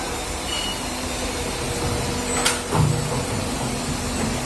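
CNC wire bending and welding machine running with a steady mechanical hum. About halfway through there is a sharp click, followed a moment later by a heavier thud as the machine cycles.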